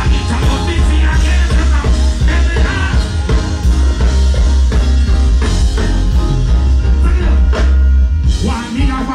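Live reggae band played loud through a stage PA, with a heavy bass line and drums under a singing voice. The bass thins out near the end.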